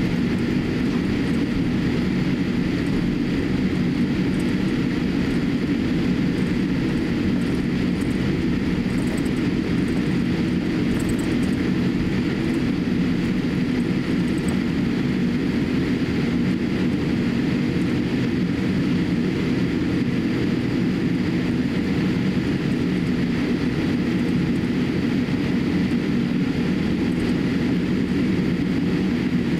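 Steady cabin noise inside a Boeing 787-8 taxiing: an even low rumble with a faint steady high tone above it.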